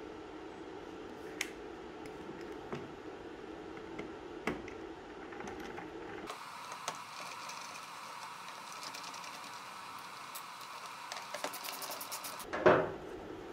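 Hand screwdriver turning screws out of a plastic clock backing: light scattered knocks of handling, then a quick run of even ratchet clicks, and one louder thump near the end.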